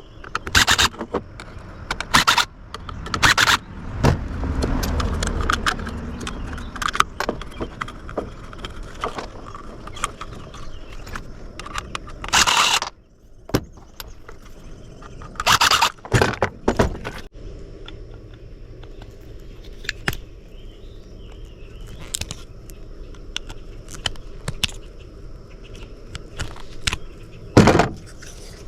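Small metal radio parts and screws being handled, with scattered clicks, knocks and scraping and a few louder clatters of metal pieces.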